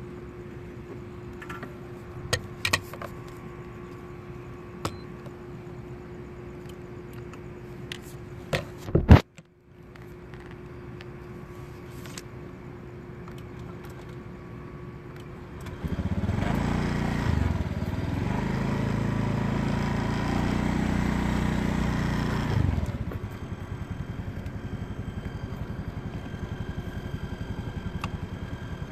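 A faint steady hum with scattered clicks and knocks, one very loud knock about nine seconds in followed by a brief dropout. About sixteen seconds in, a motor vehicle's engine passes close for about seven seconds, its pitch bending up and down, then fades to a lower steady noise.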